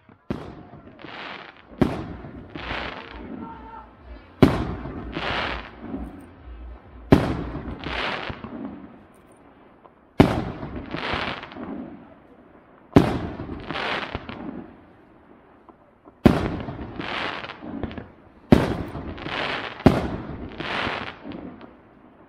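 Aerial fireworks bursting: about nine sharp bangs a couple of seconds apart, each trailed by about a second of echo.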